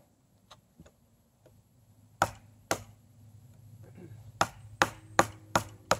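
Buck 119 hunting knife chopping low into a standing maple pole, the blade biting into the wood across the grain in sharp knocks: two about two seconds in, then four quicker blows in a row near the end.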